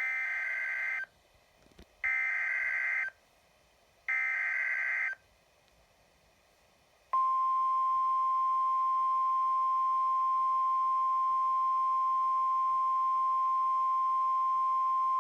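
Emergency Alert System header: three one-second bursts of screechy digital data tones, two seconds apart. About seven seconds in, the NOAA Weather Radio single-tone warning alarm starts and holds steady. It signals that a National Weather Service severe thunderstorm warning is about to be read.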